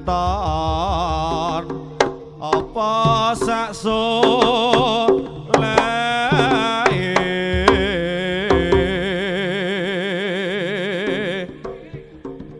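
Javanese jaranan music played live: a lead melody with heavy vibrato over drum strokes and steady ringing tones, which drops away briefly near the end.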